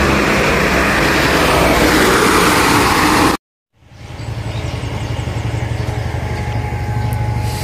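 Loud road noise of an intercity bus coming along the road, cut off abruptly a little over three seconds in. After a brief silence, a steady low hum with a faint pulse takes over.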